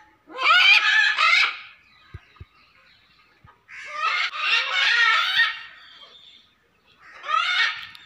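Green-winged macaws squawking: three long, harsh, raspy calls a second or two apart.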